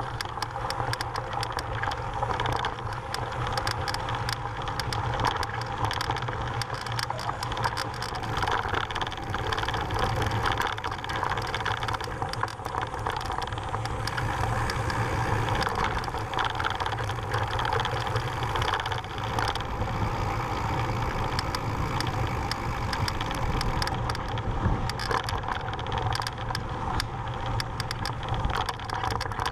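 Mountain bike riding over a loose, rocky dirt trail: steady crunch of the tyres on gravel with constant clicking and rattling from the bike, heard close up through a rider-mounted GoPro.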